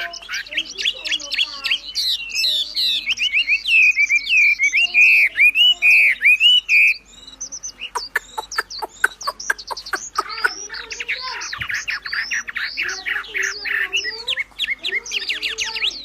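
A wambi songbird singing a fast, varied song of chirps, whistles and trills. About seven seconds in it breaks off briefly, then comes back with a rapid dry chatter and more chirping.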